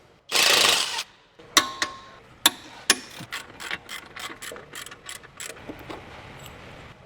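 A brief loud hiss of noise, then a hand ratchet wrench clicking as bolts are worked loose on a car's front brake and hub: a few sharp irregular clicks, then quicker, lighter ticks.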